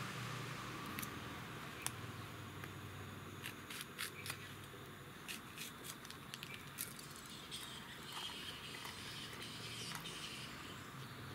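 Green chillies being handled by hand: scattered small, sharp clicks and snaps, most of them bunched together in the middle, over a faint steady low hum.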